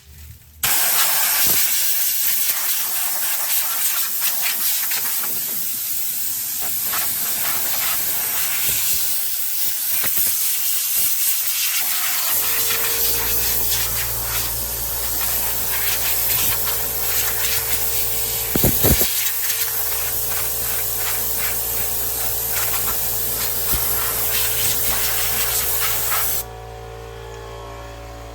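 Compressed-air blowgun hissing steadily as it blows debris out of the engine bay, stopping abruptly about two seconds before the end. A steady low hum comes in about halfway through and keeps going.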